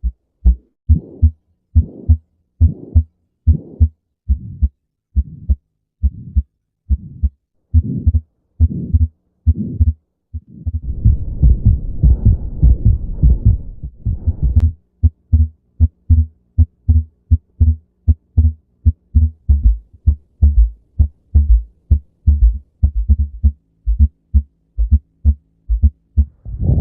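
A sequence of recorded abnormal heart sounds. For about ten seconds there are evenly paced low heartbeats. Then for about four seconds a continuous murmur fills the gaps between the beats, and from about fifteen seconds in the beats come faster and closer together over a faint steady hum.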